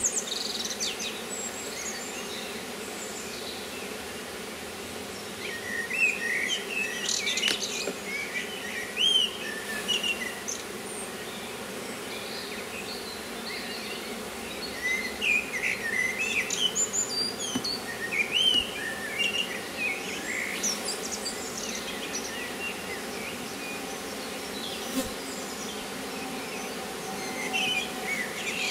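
Steady hum of honeybees swarming about an opened wooden hive as its frames are handled, with birds chirping on and off over it.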